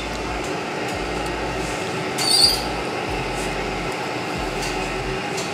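Steady background din of a small eatery, with a brief high-pitched squeak about two seconds in.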